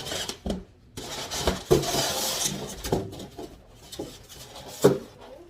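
Styrofoam packing and box being handled and pulled off a large TV: a series of knocks and clatters, the sharpest near the end, with a stretch of rustling between about one and three seconds in.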